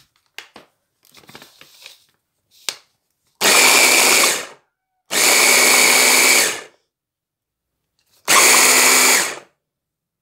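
Electric mini food chopper's motor running in three pulses of about one to one and a half seconds each, with a steady high whine, chopping cubes of pork fat (salo) into a paste. A few faint clicks come before the first pulse.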